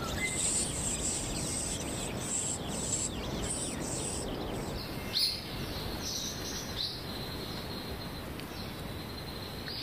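Forest ambience: a steady hiss with high, thin bird chirps. The chirps repeat through the first few seconds, and a few more come around the middle.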